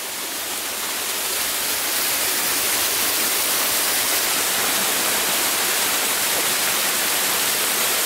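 Waterfall: a steady rush of falling water that grows louder over the first two seconds, then holds steady.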